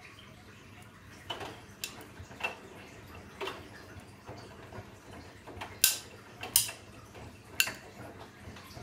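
Bosch Serie 8 front-loading washing machine tumbling a wash with extra water: water sloshing in the drum, with irregular sharp clicks and knocks as the load turns, three louder ones in the second half.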